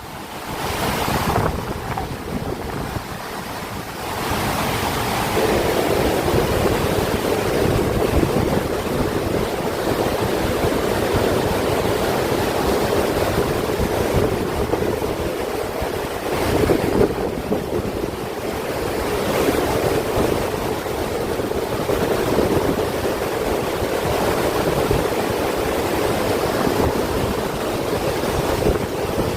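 Steady rushing of moving water, with wind buffeting the microphone.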